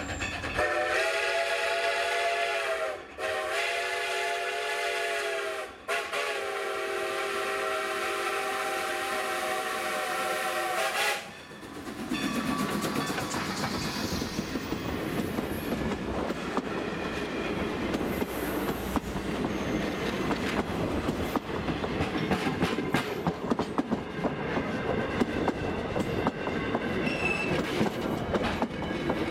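Steam whistle of Strasburg Rail Road #90, a 2-10-0 steam locomotive, sounding three long multi-note blasts at the grade crossing, the last the longest. Then the locomotive and its passenger coaches roll past close by, a steady rumble with wheels clicking over the rail joints.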